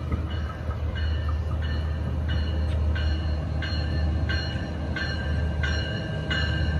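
Metrolink commuter train pulling into a station, its bell ringing about one and a half strikes a second and growing louder as it nears, over a steady low rumble from the train.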